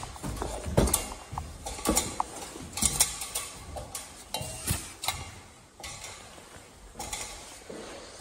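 Footsteps climbing an aluminium ladder, the metal rungs knocking and clanking about once a second. The knocks turn softer after about six seconds.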